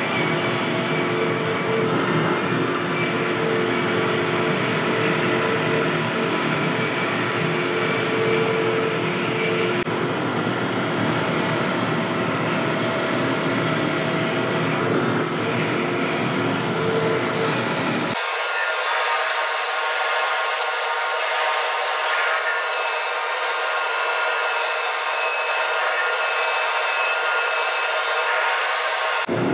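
Small benchtop wood lathe spinning a turned wooden cylinder while hand-held sandpaper rubs against it, with a steady hum from the lathe. Under it runs the rush of dust-collector suction at a hose held beside the work. The deep part of the sound cuts out abruptly about two-thirds of the way through.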